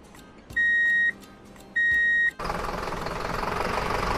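Vehicle reversing alarm: two steady, high-pitched beeps, each about half a second long and about a second apart. From about two and a half seconds in, a steady rough noise follows.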